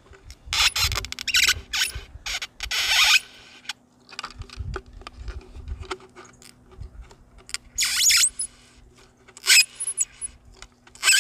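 Plastic strip squeaking and scraping as it is pulled through the blade of a wooden bottle cutter, cut off a PET water bottle, in several irregular pulls.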